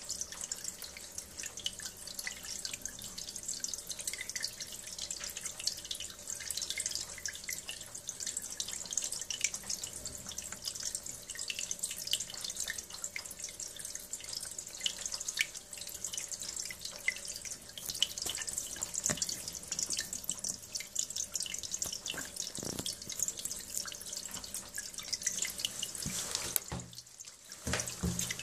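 Muddy rinse water from a heating-system power flush gushing out of a hose and splashing steadily into a toilet bowl. The flow dips briefly near the end, then picks up again.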